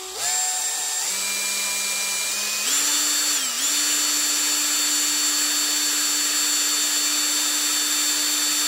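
Drill spinning a polishing-grade Scotch-Brite-type abrasive pad inside a Cox .049 engine cylinder to knock off rust and varnish. The motor whine steps up in pitch three times in the first three seconds, dips briefly about three and a half seconds in, then runs steady.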